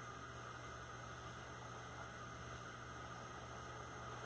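Faint, steady room tone: a low electrical hum with an even hiss, with no distinct events.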